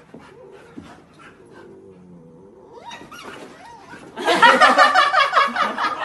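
Puppies play-fighting, one yapping loudly in a rapid run of short barks that starts about four seconds in, after a quieter stretch.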